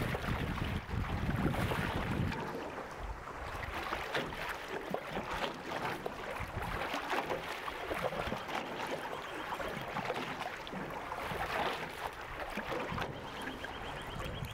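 Canoe paddle splashing and churning the water beside a Canadian canoe during sculling and draw strokes, a steady run of small splashes. Wind rumbles on the microphone for the first couple of seconds.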